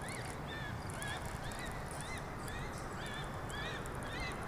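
A waterbird calling over and over, short calls that rise and fall in pitch, about two or three a second, over a steady low background. They sound like the calls of a parent bird over its young, which the anglers put down to a pike or a fox threatening the brood.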